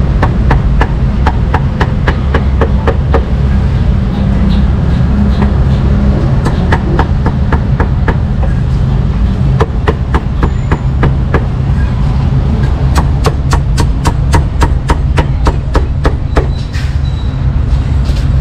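Meat cleaver chopping roast meat on a chopping block: a long series of sharp knocks, loosening and tightening in pace, with a fast run of about five strikes a second in the last third. A steady low rumble runs underneath.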